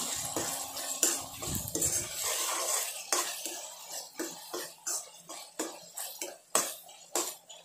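Steel ladle scraping and knocking against a nonstick kadai as a thick tomato-onion masala is stirred. The strokes come about three a second in the second half.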